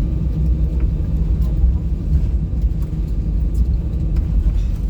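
Steady low rumble heard from inside a moving or idling vehicle, with a few faint scattered clicks.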